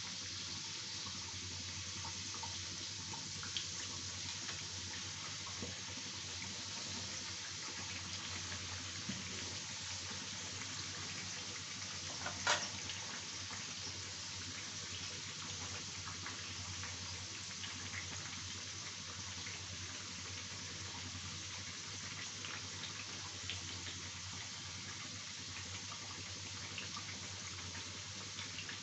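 Hot oil sizzling steadily as three sattu-stuffed litti deep-fry in a kadhai, with scattered small crackles. One sharp, louder click comes about twelve seconds in.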